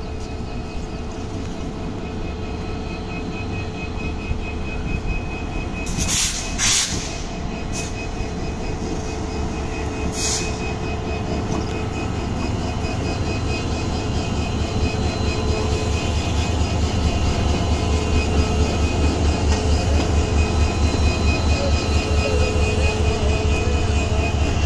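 Diesel-electric locomotive running light along the track, its engine's low rumble growing louder as it draws near and throbbing rapidly in the later part. A few short hisses come about six and ten seconds in.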